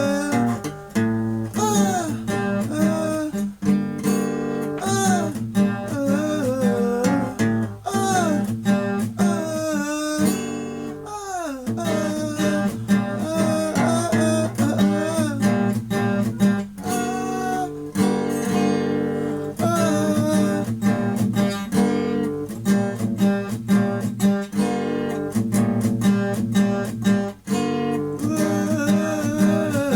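Experimental punk music played on guitar, strummed and plucked, with notes bending up and down in pitch.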